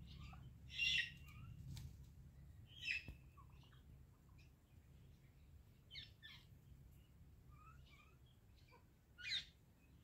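Indian ringneck parakeet giving a few short, high calls: the loudest about a second in, another near three seconds, and one near the end, with softer ones between.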